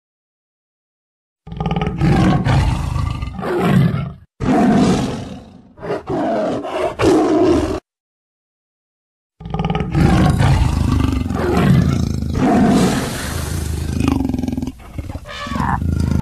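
Big cats roaring and growling loudly, in overlapping roars. The roaring starts about a second and a half in, breaks off into dead silence for about a second and a half midway, then resumes.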